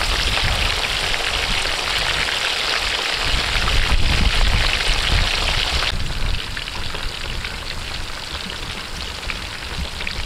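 Pork ribs deep-frying in a wok of hot oil: a dense, steady sizzle and crackle of bubbling oil, a little softer from about six seconds in.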